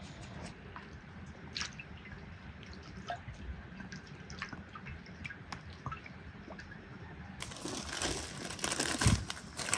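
Parchment paper crinkling as it is lifted and folded over a pile of raw vegetables, starting about 7.5 s in, with a soft thump a little later. Before that only faint scattered ticks.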